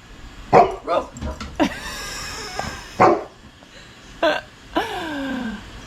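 A dog barking about six times, sharp and loud, with the last call drawn out into a whine that falls in pitch near the end.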